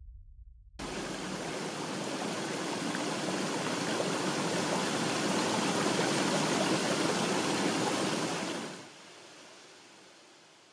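Steady rushing of running water that starts abruptly about a second in, drops off sharply near the end and then fades away.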